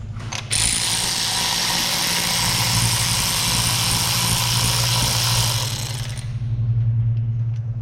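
Compressed-air tool hissing loudly and steadily for about five and a half seconds, cutting in about half a second in and stopping near six seconds, over a steady low shop hum.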